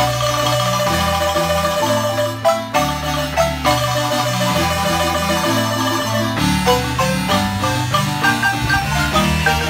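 Large wooden marimba played by four players at once, a melody of held notes in the upper keys over a bass line in the low keys.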